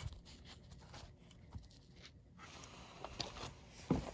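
Faint rustling and small clicks of parts and gloves being handled, with a sharper knock near the end.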